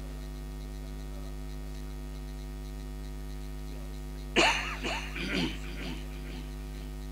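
Steady electrical mains hum and buzz from the sound system, with a voice calling out loudly for about a second and a half, about four seconds in.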